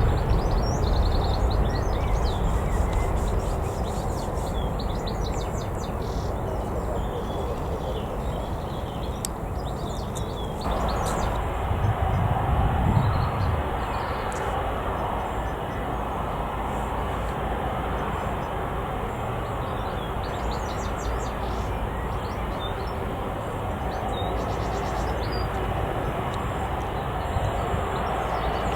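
Jet airliner engine rumble, easing off over the first few seconds and then running on as a steady rumble, with small birds chirping.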